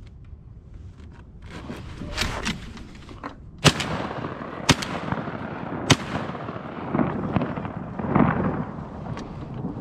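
Three shotgun shots about a second apart, fired at incoming ducks, with wind noise on the microphone around them.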